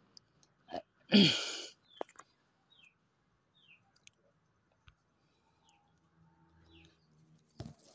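A person sighing about a second in, then a quiet pause with a few faint clicks and faint short chirps.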